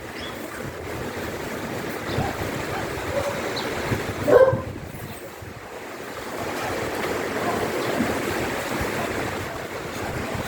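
Strong wind blowing in gusts after a cyclone, a steady rushing noise that swells and eases. A short louder sound stands out about four seconds in.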